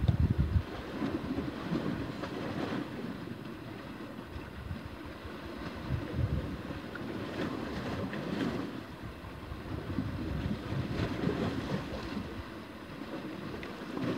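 Wind rumbling on the microphone, strongest in the first half second, then a steady rush of wind and sea washing against shore rocks.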